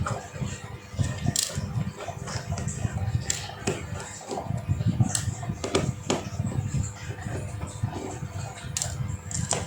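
Irregular sharp clicks and taps, about a dozen, of small tools and parts being handled during the repair of an Oppo A12 phone with no sound. A low background of music runs underneath.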